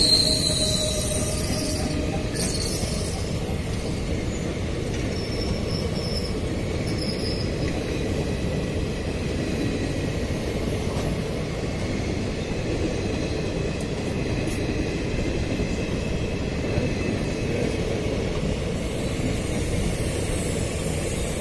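Indian Railways ICF passenger coaches of an express train rolling past close by at speed: a steady rumble and rattle of wheels on the rails. A high squeal fades out in the first second, and faint brief squeals come a few seconds later.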